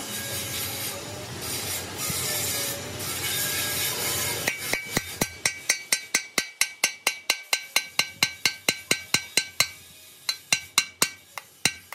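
A few seconds of rubbing and scraping, then rapid hammer blows on a steel drift, about four a second, each with a short metallic ring, driving a part into a bore of an excavator hydraulic pump's housing. The strikes pause briefly near the end and then resume.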